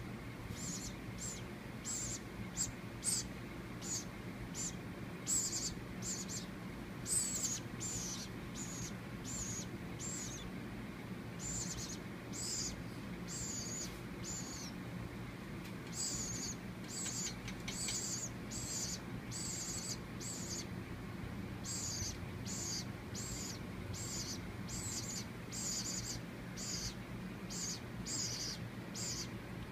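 Baby woodpecker making repeated short, high-pitched begging calls, about two a second, with a couple of brief pauses. The calls are typical of a nestling asking to be fed.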